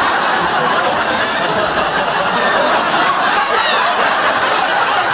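Sitcom studio audience laughing loudly and steadily.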